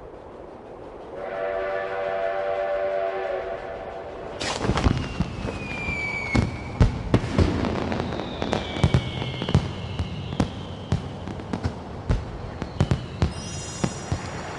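A steam train whistle blows a steady chord for about three seconds, then fireworks go off: a string of sharp bangs, some with falling whistles, and a crackle near the end.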